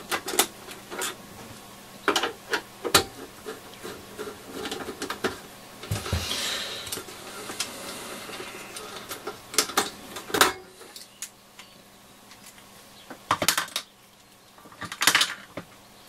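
Scattered clicks, taps and knocks of a screwdriver and hands working the screws and metal bottom cover loose from a Yaesu FRG-7700 receiver's cabinet, with a couple of louder knocks near the end.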